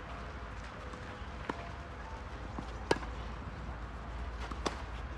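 Tennis rally: sharp strikes of racket on ball, the loudest about three seconds in, with softer hits and ball bounces between them.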